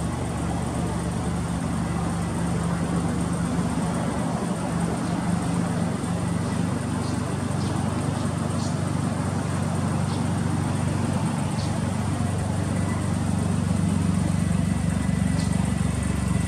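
Suzuki Cappuccino's K6A three-cylinder turbo engine idling steadily through an aftermarket muffler.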